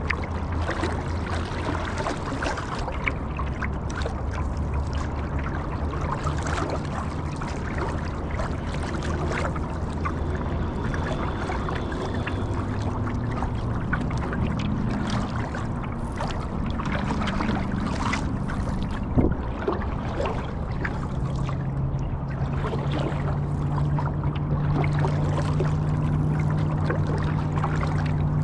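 Water trickling and splashing around a stand-up paddle board as it is paddled, over a steady low hum that shifts in pitch. A single knock sounds a little past the middle.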